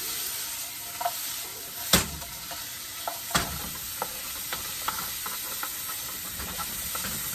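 Chicken and vegetables sizzling in a metal wok while a wooden spatula stirs and scrapes through them, with scattered sharp knocks. The loudest knock comes about two seconds in and another about three and a half seconds in.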